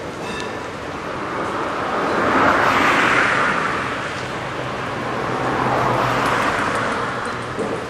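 Road traffic: two cars passing on the street beside the tram track, the first and loudest swelling up about three seconds in, the second around six seconds.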